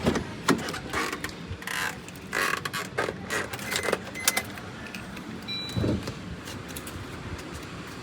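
A bunch of keys jangling, with quick rattles and clicks of handling, then a single dull thump about six seconds in.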